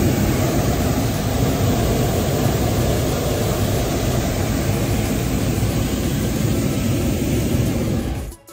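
Hot air balloon's propane burner firing: a steady, loud roar that cuts off suddenly near the end.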